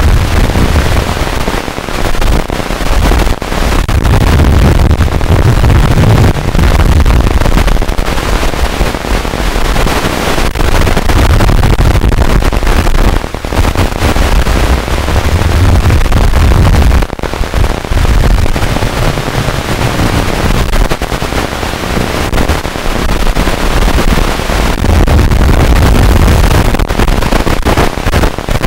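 Loud, harsh crackling static from the audio of an analog FPV video-link recording, with a couple of brief dropouts.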